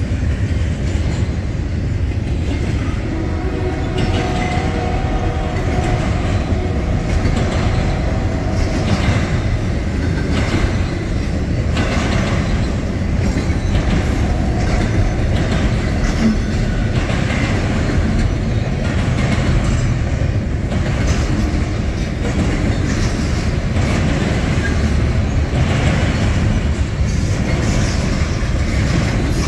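Double-stack intermodal freight train rolling past at close range: a steady, loud rumble of container well cars, with repeated clicks of wheels over rail joints.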